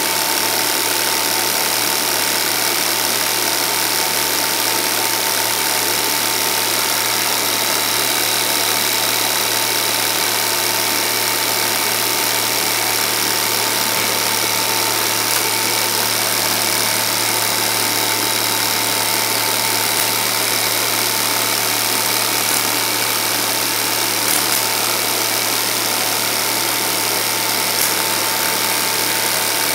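Home-movie film projector running: a steady mechanical whir with a low hum and a thin steady tone above it.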